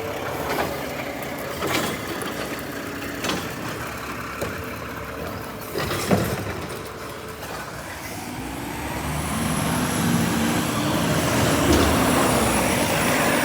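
Garbage truck engine revving up and growing louder in the second half, with a thin high whine over it. Before that there are scattered knocks and clatter over a low engine running.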